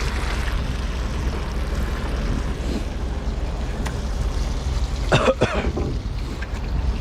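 Steady low rumble, with one short harsh burst about five seconds in.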